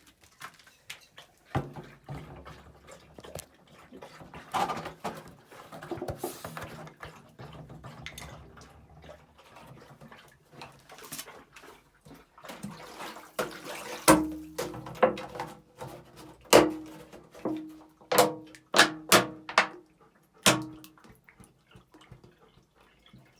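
Hollow clunks and knocks of plastic water bottles being handled, with water splashing and dripping. The sharpest run of knocks comes in the second half.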